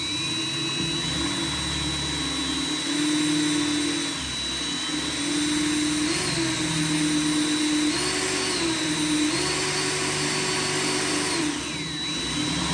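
Cordless drill running a small bit, 1/8 or 3/16 inch, into the shell of a giant horse conch, the motor whine stepping up and down in speed as the trigger is eased and squeezed.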